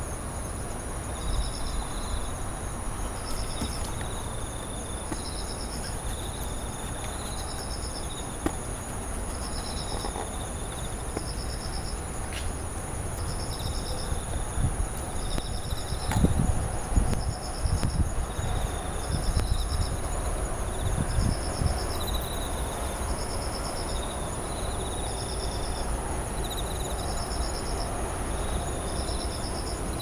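Night insects singing together: one repeats a short pulsed chirp about once a second, another answers with lower chirps in between, over a steady high-pitched trill. A low rumble runs underneath and swells about halfway through.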